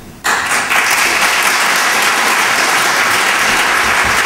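Audience applauding, starting abruptly just after the start and holding steady.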